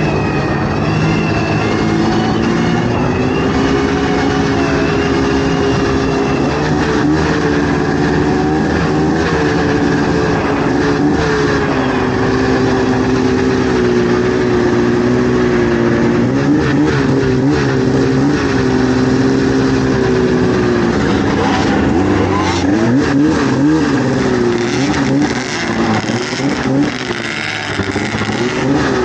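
Vintage snowmobile engine running steadily under way. Its pitch wavers up and down with the throttle in the second half.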